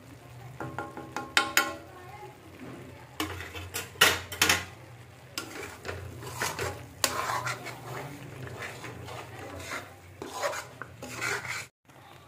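Spoon stirring and scraping thick masala gravy in a metal pan, with irregular scrapes and knocks against the pan, the loudest about a second and a half in and around four seconds in.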